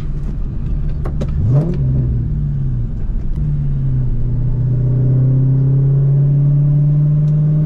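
2004 Mustang GT's 4.6-litre V8 through an off-road X-pipe and Borla S-Type mufflers: a quick rev that rises and falls about a second and a half in, then a steady pull with the pitch creeping slowly up.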